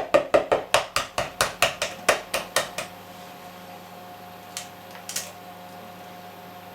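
A kitchen utensil knocking rapidly against a mixing bowl, about five sharp clinks a second, as eggs are added to cake mixture; the knocking stops about three seconds in, leaving a faint steady hum with two light clicks.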